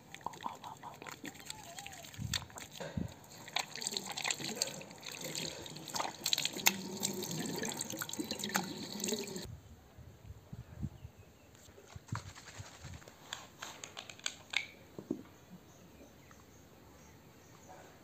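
Water splashing and trickling, with small clicks and knocks of things being handled. About nine seconds in the water sound stops abruptly, leaving only scattered clicks.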